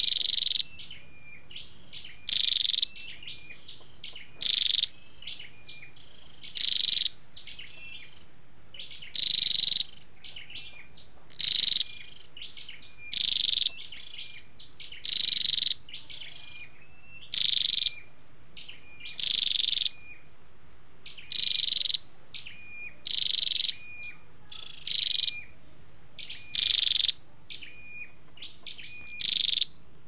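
Tailorbird calling: a loud, sharp call repeated about every two seconds, with softer short chirps in between.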